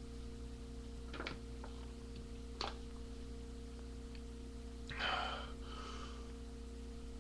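Low, steady electrical hum with a couple of faint clicks in the first few seconds, and a short breathy hiss, twice, around five to six seconds in.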